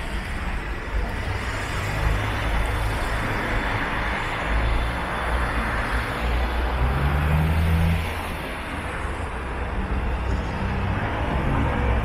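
Steady city road traffic, cars and heavier vehicles passing, with a low engine hum that swells about seven seconds in.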